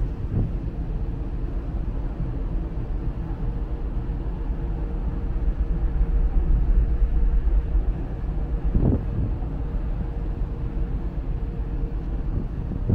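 Steady low rumble of a ferry's engines underway, with a faint steady hum over it. About nine seconds in there is one brief swell or thump.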